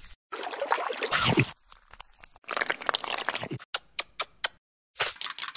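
Stop-motion eating sound effects: two stretches of rustling noise about a second each, then about five sharp clicks in quick succession.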